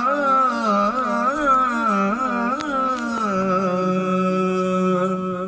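A man singing a naat unaccompanied into a handheld microphone: a solo voice winding through ornamented turns, then holding one long steady note from a little past halfway.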